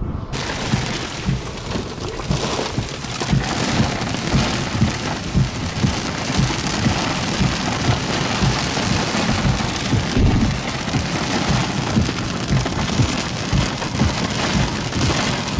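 Heavy rain hitting a vehicle's windshield and body, heard from inside, with many large drops striking as irregular thuds. It cuts in abruptly right at the start.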